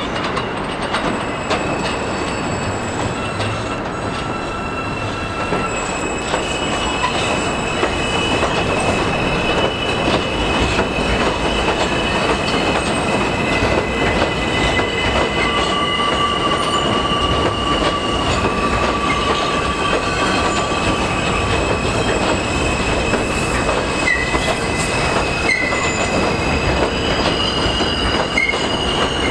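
New York City subway train rolling past on a curve of elevated track, the rumble of the cars overlaid by steel wheels squealing against the rails in several long, high steady tones: flange squeal from the curve.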